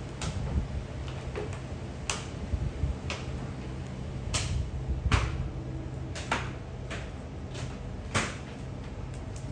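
Footsteps on a wooden plank floor: sharp knocks roughly once a second, uneven in spacing and strength, over a steady low hum.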